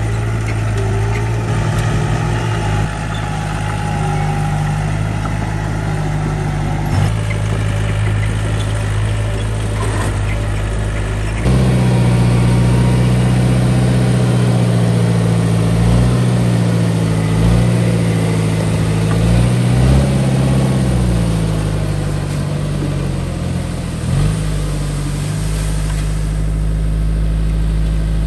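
Diesel engine of heavy earthmoving machinery running steadily, then picking up load and revs partway through, its pitch wavering up and down before dropping back.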